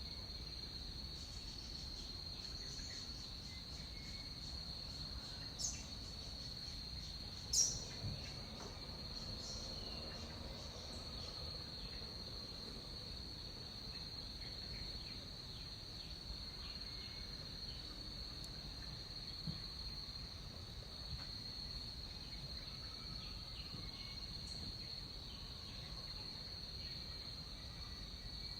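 Tropical rainforest insect chorus: a steady, high, shrill drone with pulsing trills above it and faint scattered bird chirps. Two sharp clicks come about six and eight seconds in.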